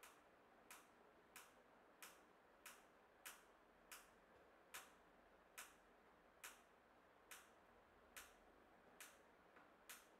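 Faint, short clicks at an even pace, about one every two-thirds of a second, as a hand screwdriver is turned in short twists to drive a screw into the press's pallet-holding U-bracket clamp.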